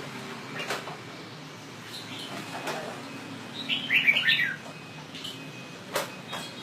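Red-whiskered bulbul singing a short, quick warbled phrase about four seconds in, with a few fainter short notes around it. A few sharp clicks, the loudest near the end.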